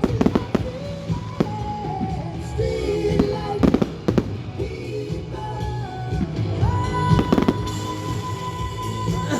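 Display fireworks going off in a run of sharp bangs and crackles, with loud music playing through them.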